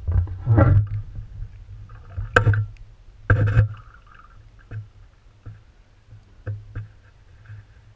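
Muffled knocks and thumps over a low rumble, heard through an underwater camera housing, loudest in the first half and thinning to a few faint ticks later.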